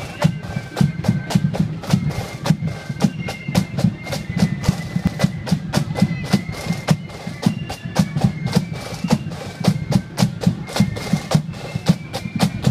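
Marching flute band playing: high flutes carry the tune over rapid snare drum strokes and a pulsing bass drum beat.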